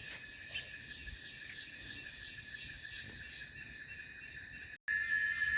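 Insects chirping in rapid high-pitched pulses, about five a second, over a steady high trill. The pulsing stops about three and a half seconds in, leaving a steady high hiss of insect noise, and the sound cuts out for a moment near the end.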